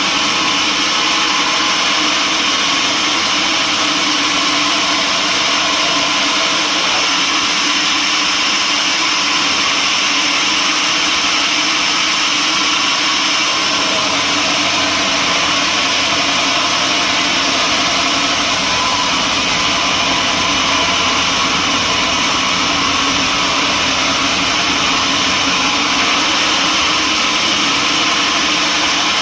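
Sawmill machinery running steadily: a constant, unchanging mechanical noise.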